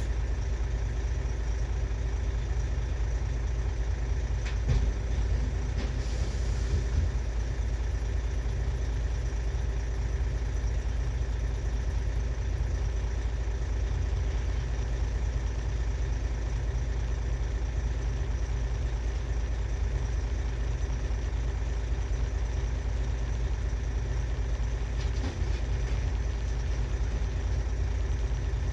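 Volvo A25G articulated hauler's diesel engine idling steadily, heard from inside the cab as a constant low drone.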